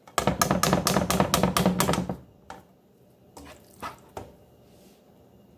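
A can of tomato sauce emptied into a pan: a quick, even run of glugs and knocks, about six a second, for about two seconds. Then a few single light knocks of a plastic spoon against the pan as the sauce is stirred.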